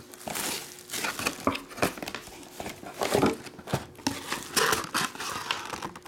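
Plastic shrink wrap on a trading card box being handled and pulled away, crinkling in irregular rustles.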